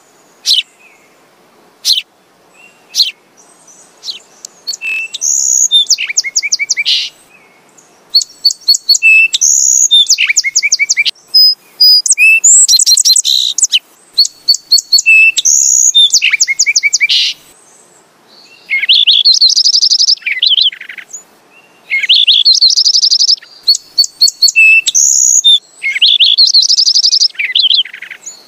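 Sparrow calls: a few separate chirps at first, then about four seconds in, repeated phrases of high chirps with fast chattering runs, each lasting a second or two with short pauses between.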